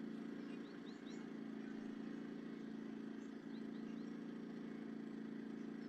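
A steady motor hum with a few faint, short, high chirps about a second in and again near the middle.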